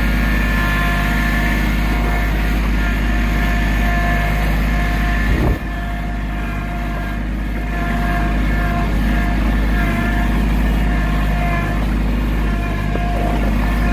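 Compact tractor's engine running steadily at an even pitch, with a brief knock about five and a half seconds in, after which it runs a little quieter.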